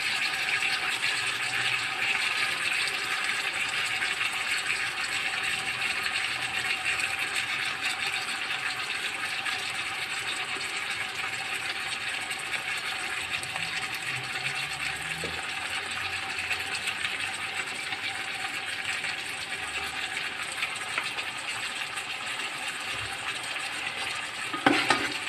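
Pork frying in a rice cooker pot, a steady sizzle.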